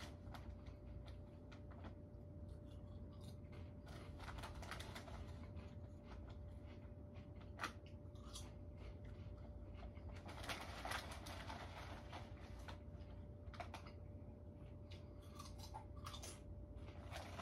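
Faint low hum with a steady faint tone, overlaid by scattered soft clicks and ticks. One sharper click comes about halfway through, and a denser run of clicks follows shortly after.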